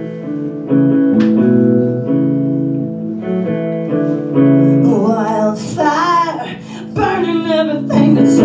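Live rock band playing held guitar chords; a female lead vocal comes in about halfway through and sings over the band.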